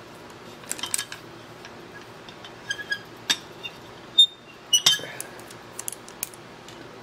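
Locking pliers clicking and steel parts clinking as a bushing is squeezed into the crankshaft bore of a small steam engine stand. Scattered sharp metallic clicks, the loudest about four seconds in and a cluster near five seconds, over a steady low hum.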